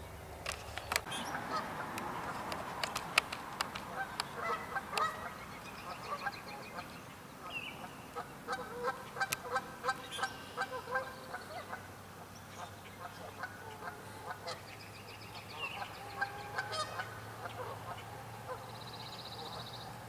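Canada geese honking over and over, in runs of short, quick honks with brief pauses between them. A few sharp clicks come in the first few seconds.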